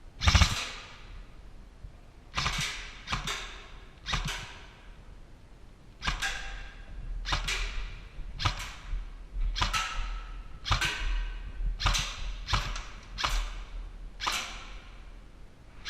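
Airsoft replica shots fired singly in a room, with echo. About sixteen sharp cracks come at irregular spacing, the loudest right at the start.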